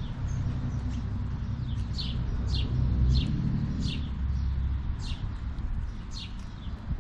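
A bird repeating a short chirp that falls in pitch, about once or twice a second, over a steady low rumble.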